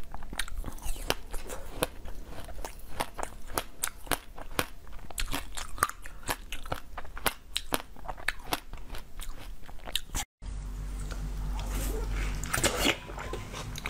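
Close-up crunching of frozen basil-seed ice being bitten and chewed, a rapid run of sharp cracks and crackles. About ten seconds in the sound drops out for a moment, then another block of ice is bitten and crunched over a low hum.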